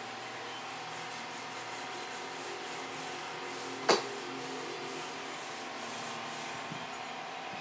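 Paint roller rubbing over a textured wall in quick repeated strokes, with a steady background hum. One sharp click about four seconds in is the loudest sound.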